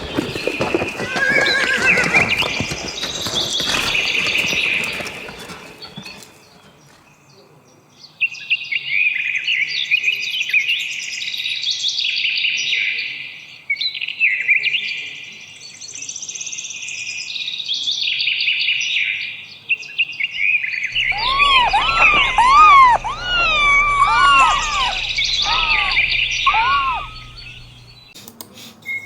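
Animal sounds: a run of repeated high chirping birdsong phrases, then near the end a series of short calls that rise and fall in pitch.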